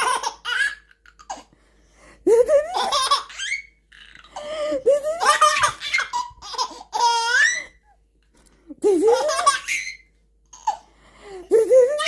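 A three-to-four-month-old baby laughing in about five bouts of belly laughs, each rising in pitch, with short breaths between. One high squeal comes a little past the middle.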